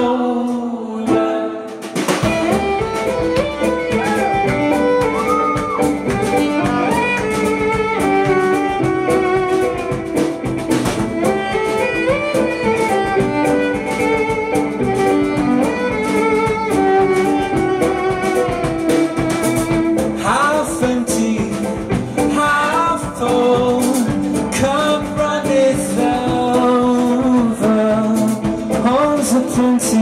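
Live violin and voice: a violin plucked like a guitar, filled out about two seconds in by a fuller accompaniment, with a bowed violin melody over it and a man singing.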